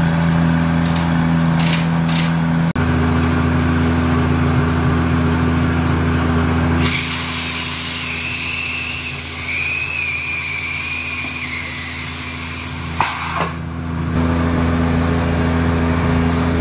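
A steady low mechanical hum, with about six seconds of loud hissing and a faint wavering whine from about seven seconds in.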